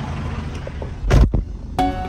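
Diesel truck engine idling, broken about a second in by a brief loud rush of noise on the microphone; near the end, background music with plucked notes comes in.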